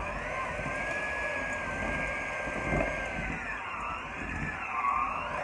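Electric hand mixer running, its beaters churning thick chocolate chip cookie dough in a glass bowl. The motor's whine dips and recovers a few times as the beaters meet the dough.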